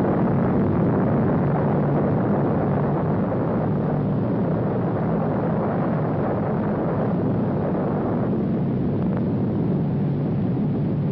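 Steady, deep roar of an atomic bomb blast, a continuous rumble with no separate strokes that thins in its upper range about eight seconds in.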